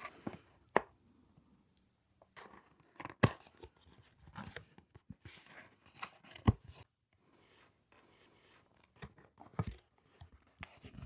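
Takeout food packaging being unwrapped: paper and wrappers rustling, crinkling and tearing in irregular bursts, with several sharp knocks as the containers are handled.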